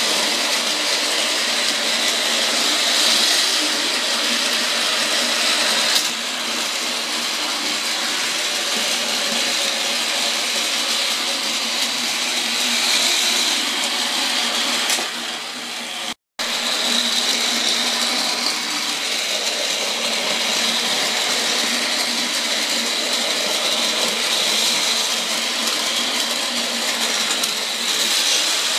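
Small battery-powered Daiso toy trains running on plastic elevated track: a steady whir of their tiny motors and wheels on the plastic rails. It cuts out for an instant just past halfway.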